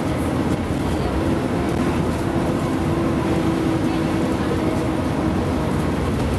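Diesel engine of a Caio Mondego HA articulated bus on a Mercedes-Benz O-500UA chassis, running steadily.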